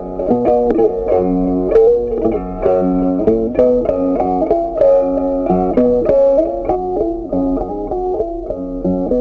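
Background instrumental music: a melody of short, distinct notes running steadily.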